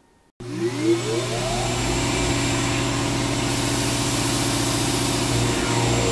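A vacuum cleaner switches on abruptly and spins up, its pitch rising over the first second, then runs steadily with a low hum.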